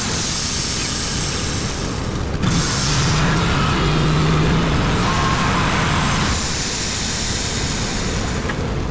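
Wood-Mizer LT35 band sawmill running, its engine humming and the band blade hissing as it cuts along a hemlock log. The hiss breaks off briefly about two and a half seconds in and eases near six seconds.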